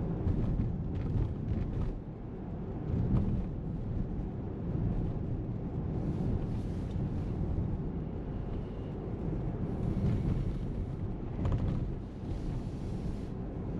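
A car driving along: a steady low rumble of engine and tyres on the road, with short spells of higher hiss every few seconds.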